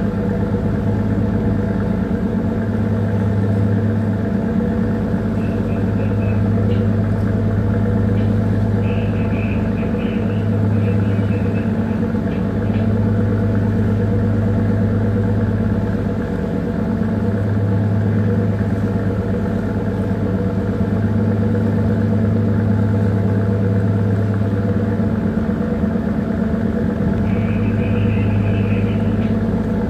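Bunker tanker's diesel engine running steadily underway: a loud, even low drone with a strong hum.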